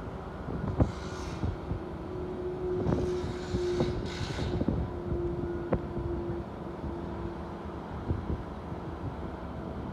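Demolition excavator running with a steady whine, while several sharp knocks and short rushes of falling rubble break through as the brickwork comes down.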